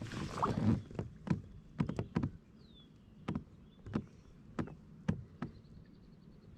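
A short rustle, then about ten sharp, irregular knocks and taps over several seconds, like hard objects striking a boat or kayak hull. A bird gives a brief call in the middle.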